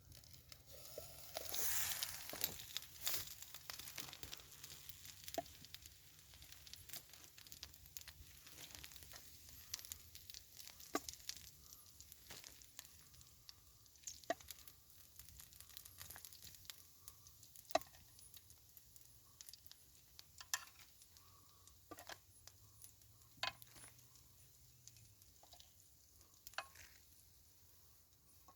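Chicken breast and pigs in blankets faintly sizzling in a pan, louder about two seconds in, with scattered sharp pops and spits.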